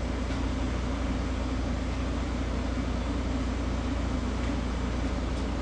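Steady machine hum: a constant low drone with an even hiss over it and no change in level.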